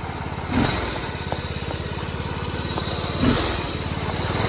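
Pulley-swapped MTD racing lawn tractor's small engine running steadily under throttle as it drives fast, with two thumps, one about half a second in and one about three seconds in.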